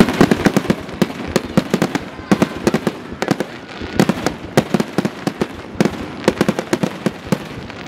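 Aerial fireworks display: rapid, irregular bangs going off in dense clusters, often several a second.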